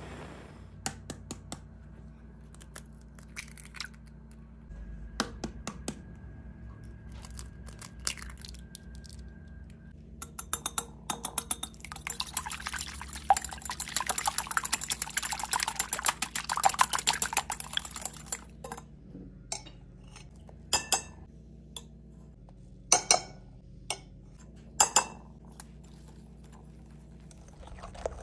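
Fork beating eggs in a glass bowl: several seconds of rapid clinking against the glass, with the egg sloshing. Single clinks of utensils on the glass bowl come before and after.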